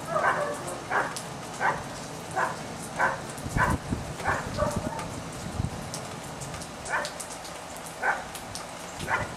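Puppies yapping in short repeated barks, about three every two seconds for the first half, then a few single barks spaced about a second apart near the end. Steady rain patters underneath.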